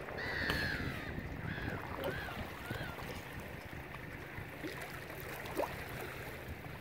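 A gull calling: one long wavering call, then three short arched calls over the next two seconds, over a steady low rumble of background noise.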